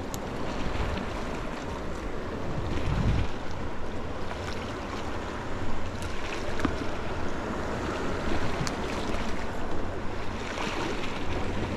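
Wind buffeting the microphone over sea waves washing against the shore rocks, with a few faint clicks.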